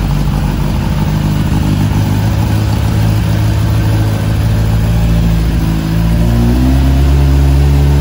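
1996 Kawasaki ZX-11's inline-four running through its aftermarket exhaust just after a cold start, after sitting unstarted for months. It idles steadily, and from about six seconds in the revs rise and hold higher.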